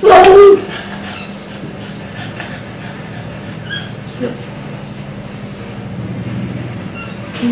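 A dog barks once, loud and sharp, right at the start, its pitch dropping. A thin, steady high-pitched whine and a low hum run on behind it.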